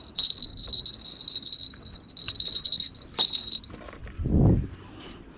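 Fishing reel drag buzzing in long, high-pitched runs as a hooked fish pulls line off, broken briefly twice and stopping a little over halfway through. A short, dull low rumble follows near the end.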